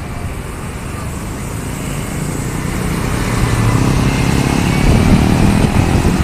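Road traffic with a motor vehicle engine getting louder as it approaches and passes close by, loudest about five seconds in.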